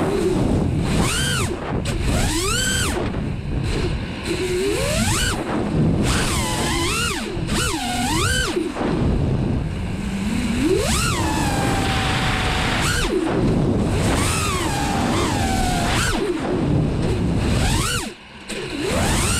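A 5-inch FPV racing quadcopter's brushless motors whining, the pitch sweeping rapidly up and down as the throttle is worked, with wind rush, heard from the camera on board. Near the end the motors drop away almost to nothing for a moment, then spool back up.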